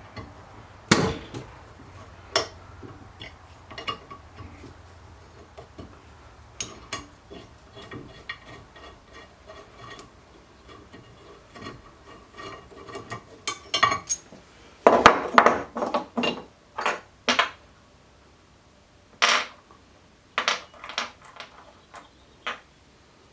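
Steel and cast-iron vice parts and hand tools clinking and knocking as the vice is taken apart. The knocks are scattered, with a louder run of them about fifteen seconds in.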